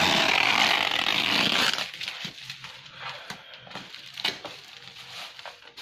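Bubble wrap and packing tape pulled and torn by hand: a loud rustling tear for about the first two seconds, then quieter crinkles and clicks.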